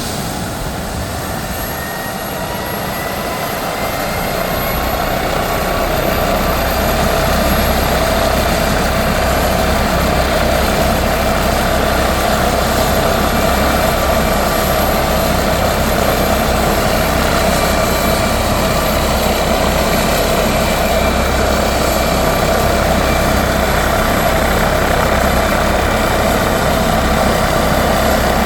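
MD 902 Explorer helicopter's turbine engines and rotor running, with a whine that rises in pitch and grows louder over the first several seconds, then settles into a steady sound.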